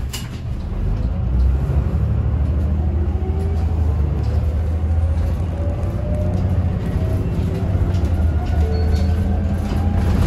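Isuzu Erga city bus engine running under load as the bus gathers speed: a steady low drone with a whine that rises slowly in pitch. A short sharp click sounds right at the start.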